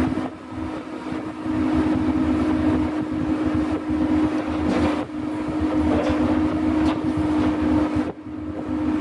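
Sennebogen material handler running: a steady diesel engine rumble with a constant whine, the level dropping suddenly a few times.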